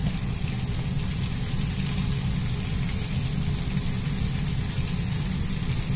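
Pieces of chicken karaage deep-frying in a crowded pan of hot oil, a steady sizzle of bubbling oil over a constant low rumble.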